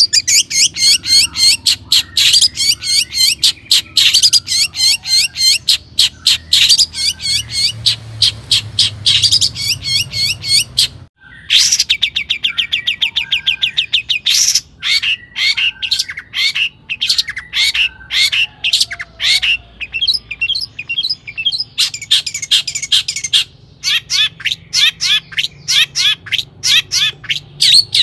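Long-tailed shrike (cendet) singing energetically: fast runs of repeated high, sharp notes with a brief pause about eleven seconds in. This is the full, aggressive song that keepers play as a lure to provoke other shrikes into singing.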